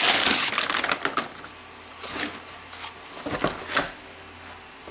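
Foil anti-static bag crinkling loudly as a graphics card is slid out of it, then a few light knocks and rustles as the card is handled and set down on the foam-lined box.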